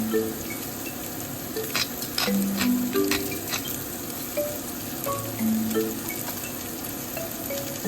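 Food sizzling steadily in a frying pan, with a quick run of clicks from a utensil stirring or tapping the pan about two seconds in.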